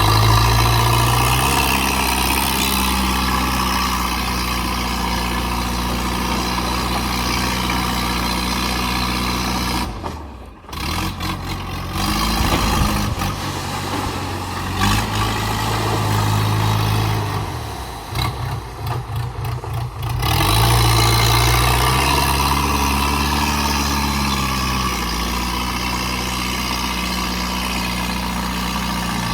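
JCB 3DX backhoe loader's diesel engine running as the machine works, its pitch rising and falling as it revs up and settles back, over a steady mechanical din. The engine sound dips briefly about ten seconds in and again near twenty seconds.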